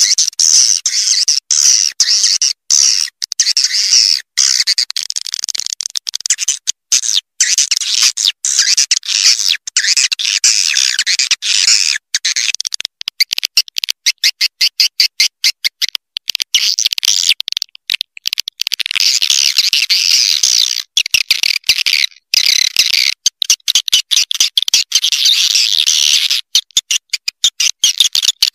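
Swiftlet lure call recording: dense, rapid, high twittering chirps and trills of swiftlets, broken by many brief gaps. This is the kind of recording played to draw edible-nest swiftlets into a nesting house.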